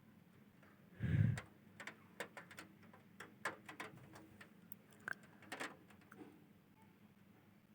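A low thud about a second in, then irregular light clicks and knocks over the next few seconds, like something loose rattling and knocking in strong wind.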